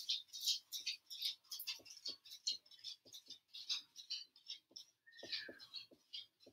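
Pen writing on paper: faint, short scratching strokes, three or four a second, as numbers are written out by hand.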